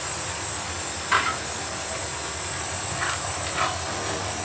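Chopped pork lung and heart sautéing in a pan with oil and soy sauce, sizzling with a steady hiss. A few short, faint sounds stand out, about a second in and twice near the three-second mark.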